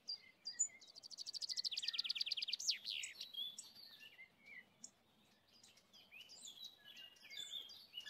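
Songbird singing: one fast trill about a second in that steps down in pitch partway and ends in a quick downward flourish, followed by scattered faint chirps from other birds.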